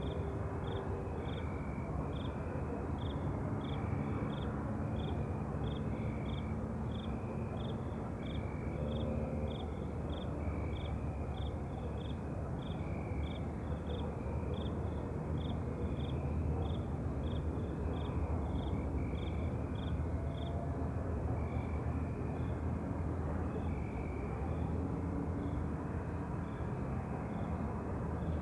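Night chorus of chirping animals: a high chirp about twice a second that fades away about two-thirds of the way through, and a lower, drawn-out call about every second and a half, over a steady low rumble.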